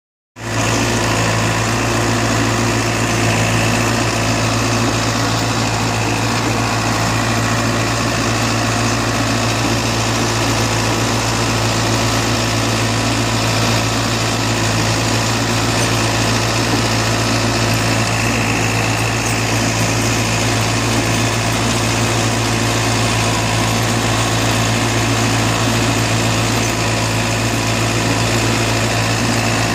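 Tractor engine running steadily, heard loud and close from the driver's seat, while it pulls a field cultivator and harrows through the soil.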